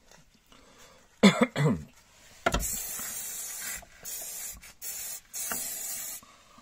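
Aerosol silicone spray hissing onto rubber air-suspension bellows in four bursts with short gaps, then cutting off abruptly. Just before the spraying, about a second in, come two short, loud calls, each falling in pitch.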